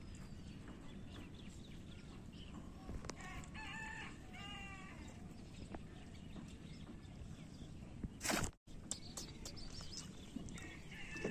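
A rooster calling, two calls close together about three to five seconds in and another near the end, over steady low outdoor background noise. A short loud burst about eight seconds in, cut off by a brief dropout.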